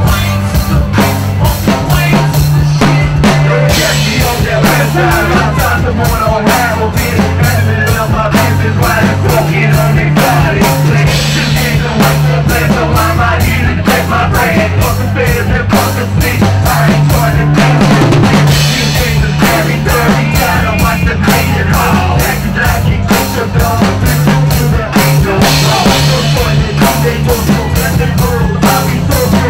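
Loud live hip-hop music from a stage sound system: a steady drum kit beat over a deep, repeating bass line.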